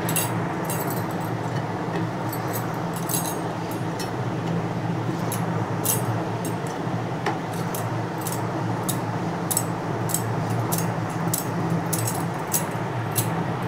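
Dough being rolled out with a wooden rolling pin on a rolling board: many light, irregular clicks and clinks from the pin and the bangles on the roller's wrists, over a steady low hum.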